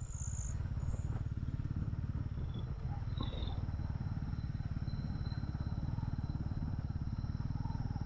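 Honda CB150R's single-cylinder engine running steadily under way, a constant low drone.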